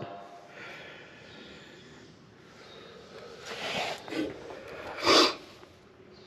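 Faint sounds of a person breathing, with a short, louder breath-like rush about five seconds in and a fainter one a little before.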